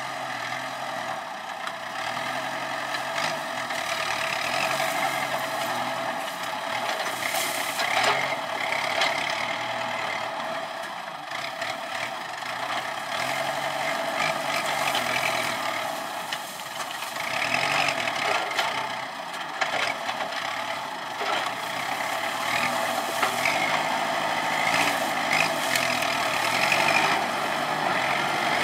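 Kubota tractor's diesel engine running steadily under load as its hydraulic sugarcane grab works, with scattered cracks and rustles as the claw scrapes into and gathers a pile of cane stalks.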